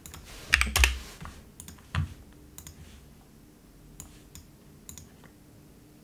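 Typing on a computer keyboard: a quick run of keystrokes in the first second and a heavier single key press about two seconds in, then a few light, scattered clicks.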